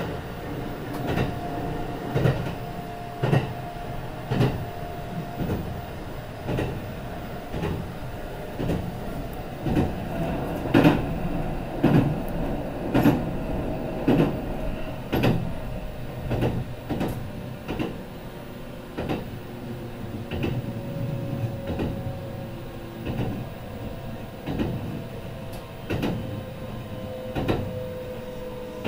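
Kintetsu 22000 series ACE electric train running, heard from the deck inside the car: wheels knock over rail joints about once a second over a steady rumble. A thin whine from the Mitsubishi GTO VVVF inverter drive slowly falls in pitch in the second half.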